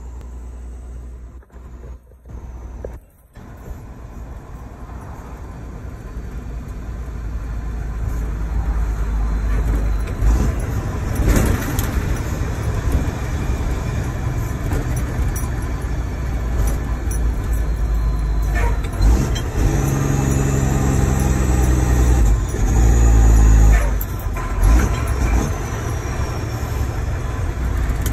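Mack truck's diesel engine pulling through the gears of an 8-speed manual transmission, heard from inside the cab. The engine drone gets louder over the first ten seconds, with a few knocks from the shifting and a stronger, steadier engine note about twenty seconds in.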